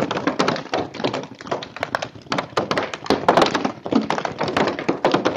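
Paintball markers firing from several players at once: rapid, irregular, overlapping pops.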